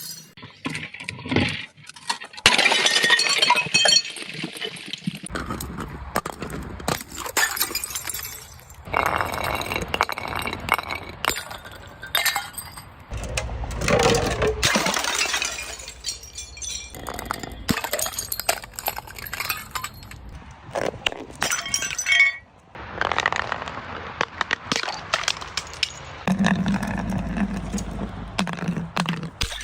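Glass bottles breaking and crunching again and again, with shards clinking and tinkling between the louder smashes.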